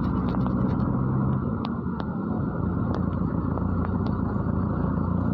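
Diesel engine of a MAZ-103 city bus running as the bus drives, heard from inside the passenger cabin: a steady low drone with road noise and scattered sharp rattles and clicks from the body and fittings.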